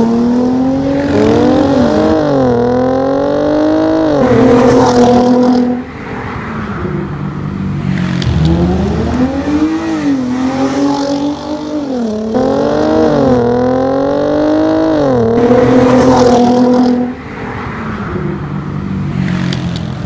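Hyundai Genesis 3.8 V6 with a true dual catback exhaust and aftermarket air intake accelerating hard past, the exhaust note climbing in pitch in steps with short drops between. It happens twice, each run ending as the sound falls away, about six seconds in and again near the end.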